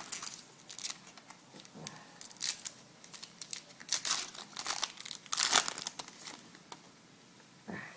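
Foil wrapper of a 2011 Topps Chrome baseball card pack being torn open and handled: a run of irregular crackly rustles, loudest about four and five and a half seconds in.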